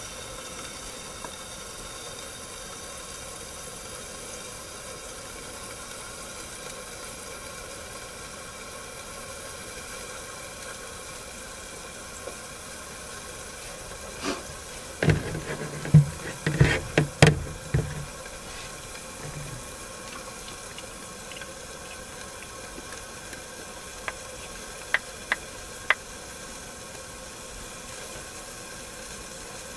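Steady hiss from a small camp stove heating a lidded stainless-steel pot that is letting off steam. About halfway through there is a short burst of knocking and clattering, and a few sharp clicks come near the end.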